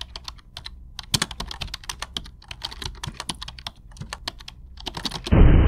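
Rapid, irregular computer-keyboard typing clicks, used as a sound effect over on-screen title text. About five seconds in, a sudden loud, low rush of noise cuts in.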